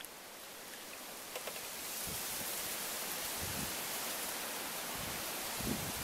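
Hands washing raw chicken wings in a plastic bowl of water, with soft splashes and handling thuds, over a steady outdoor hiss that grows louder about two seconds in.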